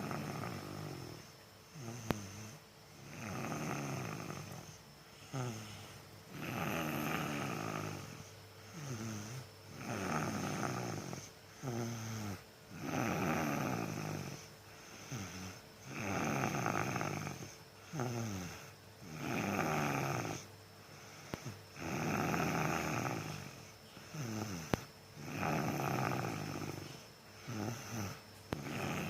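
A young child snoring in sleep, one breath cycle about every three seconds: a longer snore alternating with a shorter breath that falls in pitch. The parent thinks the snoring may come from the child being exhausted.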